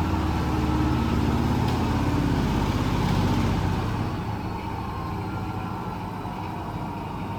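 Miele Professional laundry machine running with a steady low hum; about four seconds in it gets quieter and the hum fades into a softer whirr.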